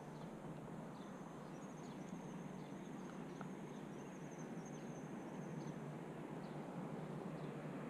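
Quiet outdoor background: a steady low hiss, with a thin high-pitched trill from about one and a half to five and a half seconds in and a few faint short chirps.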